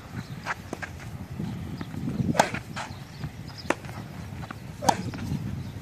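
Tennis rally on a hard court: sharp racket-on-ball hits and ball bounces trading back and forth. The two loudest hits come about two and a half seconds apart, each with a brief ring of the strings, with fainter far-side hits and bounces between them.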